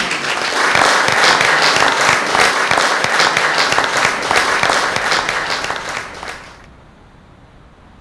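Audience applauding, many hands clapping at once, stopping abruptly about six and a half seconds in. A much quieter, steady rush of wind follows.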